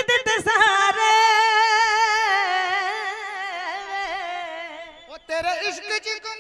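A woman singing into a stage microphone: one long wordless held note with a wavering vibrato, breaking off about five seconds in before the next sung phrase starts.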